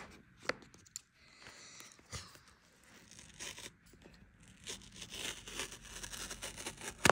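Paper pull-tab seal being torn off a HomePod 2 box. Scattered handling clicks come first, then a tearing rustle builds over the last couple of seconds and ends in a sharp snap.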